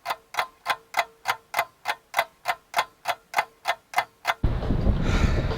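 Clock ticking, about three even ticks a second over a faint steady hum, laid over a silenced background. It stops about four and a half seconds in and a steady rush of noise takes over.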